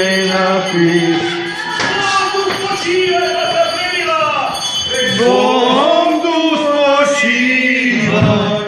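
Several voices, mostly men's, singing a slow mock-funeral lament in a chanting style, with long held notes.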